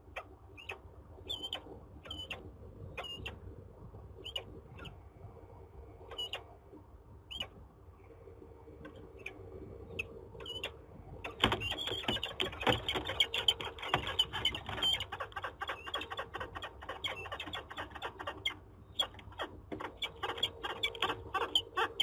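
Peregrine falcon calling near its nest box: short, high, separate calls that bend in pitch, then a fast, dense run of calls from about halfway through, with single calls again near the end. A steady low hum runs underneath.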